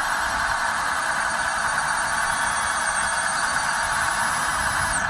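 Electric motors of a 1:15-scale RC crawler crane running steadily as its boom is raised: a high, wavering whine over a constant hum. The whine cuts off suddenly at the end.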